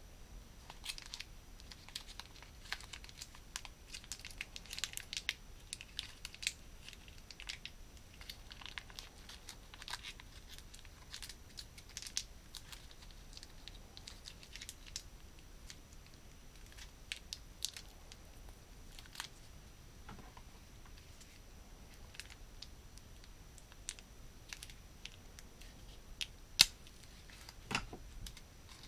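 Plastic packaging and small plastic toy pieces rustling and clicking as a toy playset is unpacked by hand, in scattered light crinkles with one sharper click near the end.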